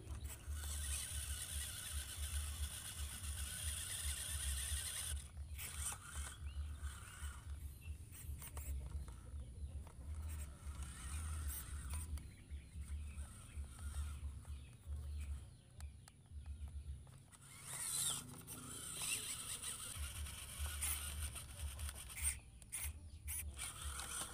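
Small electric motor and gearbox of a WPL C24 RC crawler truck whining in stop-start bursts as it drives through wet soil under a load, over a choppy low rumble.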